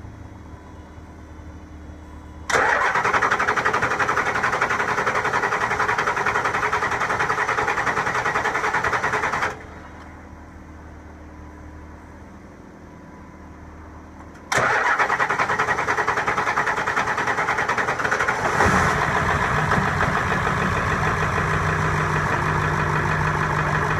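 7.3 Powerstroke V8 turbo-diesel being cranked on the starter for about seven seconds without firing, then cranked again until it catches near the end and settles into a rough idle. The hard start is typical after injector O-ring replacement, while the high-pressure oil in the heads builds back up.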